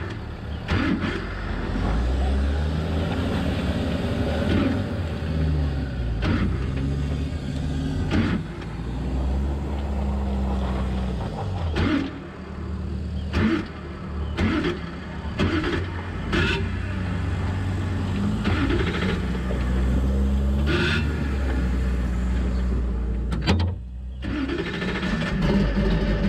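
Ultra4 race car's engine running with the car stopped, the revs rising and falling again and again, with scattered knocks and clunks.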